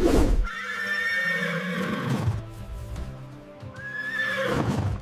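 Horse whinnying twice, each a long call, over background music.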